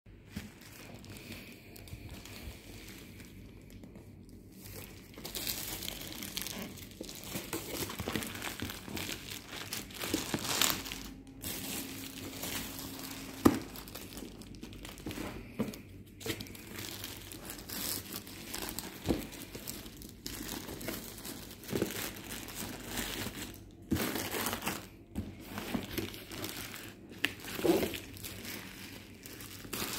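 Plastic packaging wrap crinkling and rustling as a parcel is handled and unwrapped, with some tearing; one sharp knock stands out a little before the middle.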